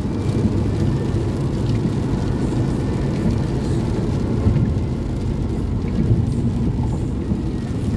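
Road noise inside a car's cabin while driving on a rain-soaked freeway: a steady low rumble of tyres on wet pavement, with rain on the car.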